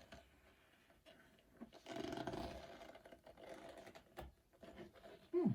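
Soft handling and rustling with a few small clicks and knocks as a cup of acrylic paint is flipped over onto a clock base for a pour. A short falling voice-like sound comes just before the end.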